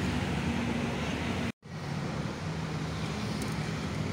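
Steady road traffic noise with a low engine hum from passing vehicles. The sound drops out completely for a moment about one and a half seconds in.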